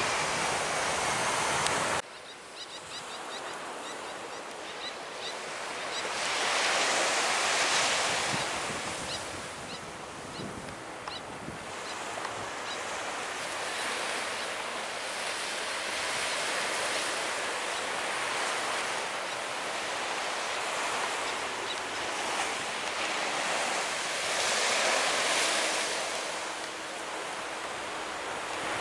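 Surf washing onto the beach, swelling and fading slowly, with wind on the microphone. For the first two seconds an airliner's jet engines whine on the runway, then cut off suddenly.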